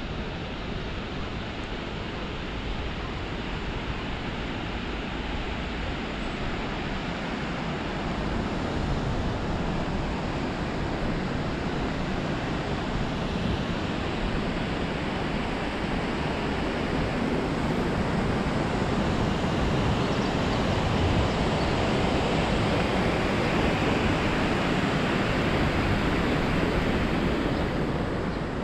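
Steady rushing wind noise on a head-mounted GoPro microphone while riding a bicycle, growing a little louder after about eight seconds.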